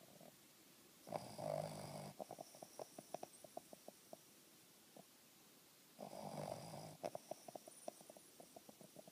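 Boston terrier snoring: two long, rasping snoring breaths about five seconds apart, each trailed by a run of short, soft clicking flutters.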